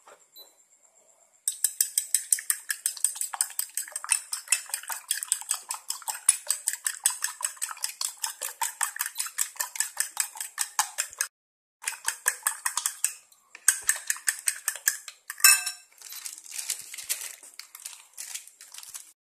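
Metal fork beating raw eggs in a ceramic bowl: rapid clinking strokes of the tines against the bowl, with two short pauses about halfway and one louder knock near the end.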